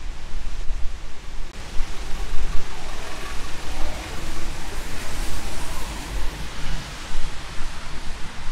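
Rain and wet-road traffic on a city street: a steady hiss of rain and tyres on wet pavement, swelling louder through the middle as a vehicle passes, over a low, fluttering rumble.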